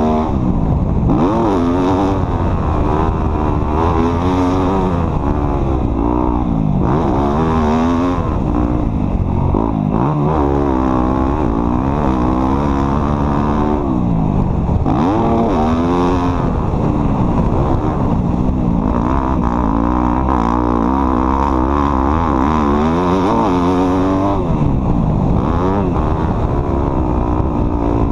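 An off-road vehicle's engine under way, its pitch rising and falling again and again as the throttle is opened and closed.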